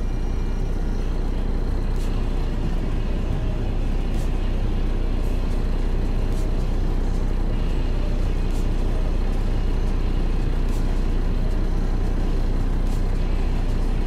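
Beet truck's engine running at a steady idle, heard from inside the cab as an even low rumble.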